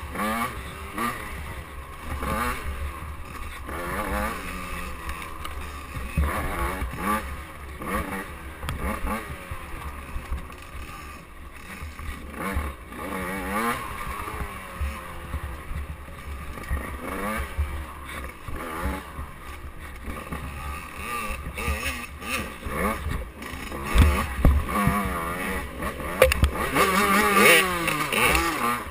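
85cc two-stroke KTM dirt bike engine revving up and down as it rides a tight woods trail, pitch rising and falling with each throttle change and wind on the microphone. It gets louder near the end, with another dirt bike close ahead.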